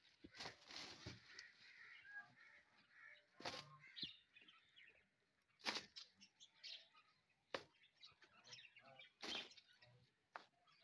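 Faint, dull knocks every one to two seconds as dried cow-dung cakes are set down on top of a wall, with birds chirping in the background.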